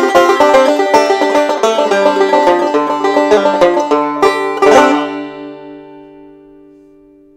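Resonator banjo picked quickly through a bluesy tune's ending, closing on a final chord about five seconds in; the last notes ring on and fade away.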